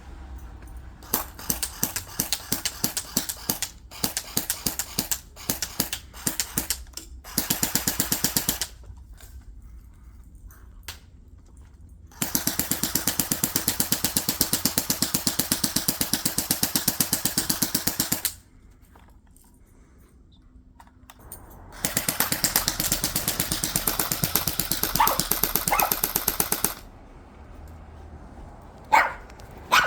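Airsoft rifle firing: scattered single shots and short bursts at first, then three full-auto strings of rapid clicking, the longest about six seconds, with pauses between.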